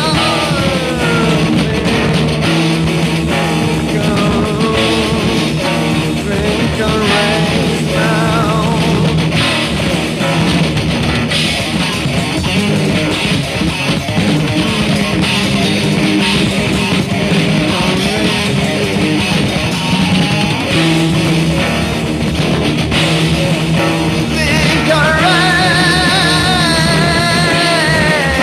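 Rock music from a tape recording: guitar and other instruments over steady low held notes, with wavering, bending melody lines that move higher near the end.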